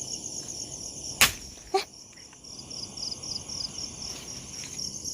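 Crickets chirping steadily in a fast pulsing trill, with one sharp knock about a second in and a brief, fainter second sound just after it, like something dropping.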